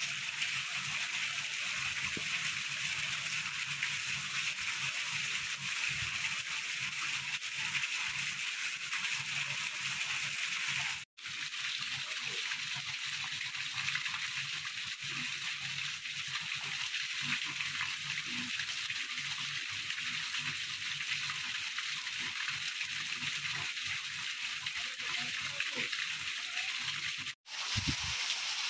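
Rainwater gushing out of a PVC drainpipe elbow and splashing down, a steady rushing sound, cutting out briefly twice.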